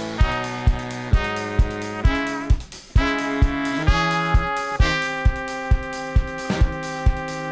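Brass band music: trumpet, trombone and bass saxophone holding sustained chords over a drum kit keeping a steady beat of about two hits a second. The band drops out briefly about two and a half seconds in, then comes back in full.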